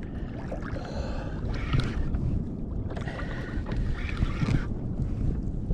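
Wind rumbling on the microphone and water sloshing against a kayak's hull, with two stretches of louder hiss about a second and three seconds in.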